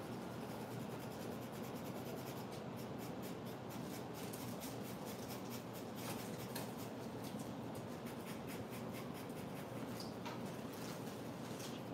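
Metal stylus scratching over a wax mimeograph stencil in many short, uneven strokes, scraping the wax away to cut the image. The scratching is faint over a steady low room hum.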